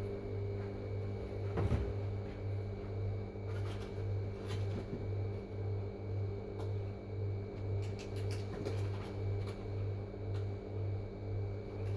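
Household refrigerator's compressor running just after starting up: a steady low hum that throbs about twice a second.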